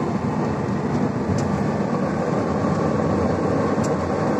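Diesel engine and drivetrain of a 45-tonne BelAZ mining dump truck, heard from inside its cab while driving: a steady low drone with no change in pitch.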